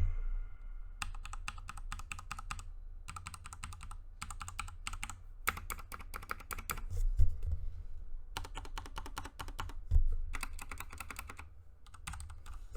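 Typing on a mechanical keyboard with Cherry MX Speed Silver linear switches: fast runs of key clicks and clacks in several bursts with short pauses between them.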